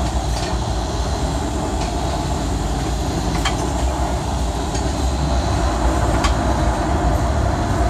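Lifeboat's engines running steadily under a wash of wind and sea noise, heard from inside the wheelhouse in heavy seas. Two short sharp clicks come through, about three and a half and six seconds in.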